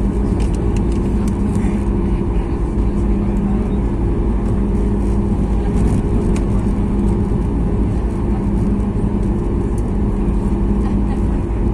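Steady cabin drone inside a Boeing 737 MAX 8 on the ground before take-off, its CFM LEAP-1B engines at idle with the air-conditioning, a constant low hum running under the rushing noise. A few faint ticks in the first seconds.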